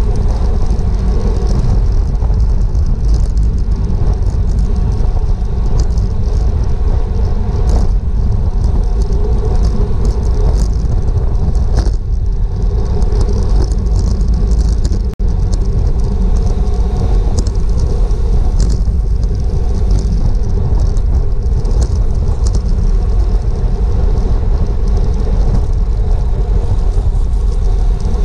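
Wind rushing over a GoPro microphone on a bicycle at racing speed: a loud, steady low rumble with the hum of tyres on the road underneath, dipping briefly about halfway through.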